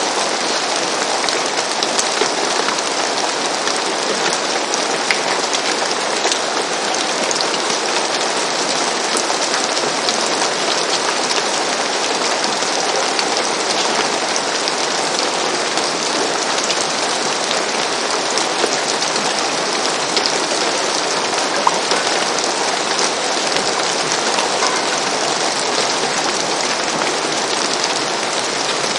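Steady rain falling on a roof: a dense, even hiss of drops with scattered sharper drop ticks.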